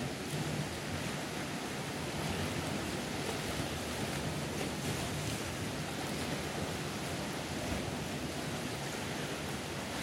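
Sea surf washing among the rocks of a narrow coastal gorge, a steady rush of water.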